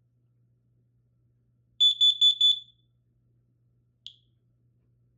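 Kidde Nighthawk KN-COSM-B smoke and carbon monoxide alarm's horn sounding four rapid, loud, high-pitched beeps, the carbon monoxide alarm pattern, during a test. A single short chirp follows about two seconds later.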